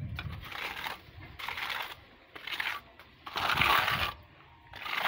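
Metal trowel spreading and scraping thick texture paint over a block wall, in repeated rasping strokes about once a second; the loudest stroke comes about three and a half seconds in.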